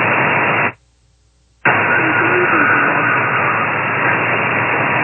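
Shortwave radio static on an upper-sideband (USB) channel: a loud, even hiss cut off sharply just under 3 kHz. It drops out for about a second just under a second in, then comes back.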